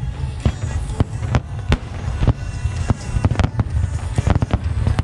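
Aerial fireworks shells bursting in a rapid, irregular series of sharp bangs, a few each second, over a steady low rumble.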